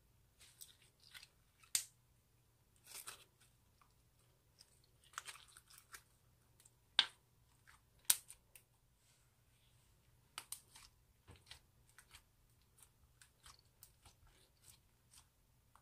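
Clear slime full of confetti sequins being stretched, kneaded and pressed flat by hand, making scattered sticky crackles and small pops, with a few sharper snaps about two, seven and eight seconds in.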